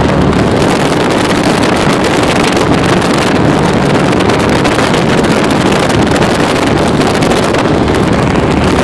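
Baja 272 powerboat running at speed: a steady engine drone and the rush of water, with wind noise on the microphone.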